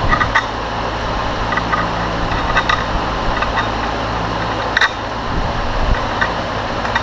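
A few scattered light metallic clinks as a flathead bolt is set into the countersunk holes of a steel bearing plate, checking that the countersinks are all about the same depth, over a steady fan hum.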